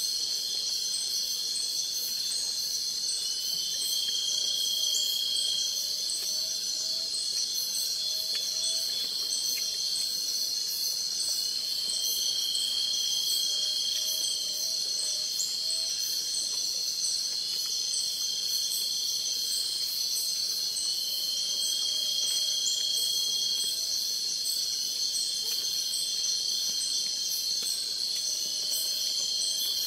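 A steady chorus of forest insects, crickets and the like, shrilling high, with a separate call held for a second or two and repeated every four to five seconds.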